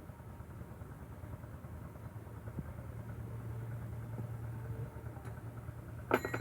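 Engine of a sago-processing machine running steadily, its low hum growing stronger from about two seconds in. A brief, sharp, loud sound with a ringing edge comes just before the end.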